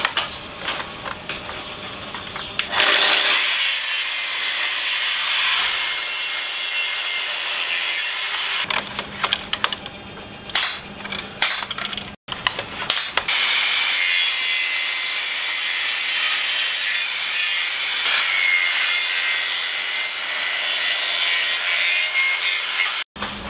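Bosch table saw blade cutting through a wooden board twice. The first cut lasts about five seconds. Then come clicks and knocks as the bevel is set, followed by a longer steady cut with the blade tilted to 45 degrees.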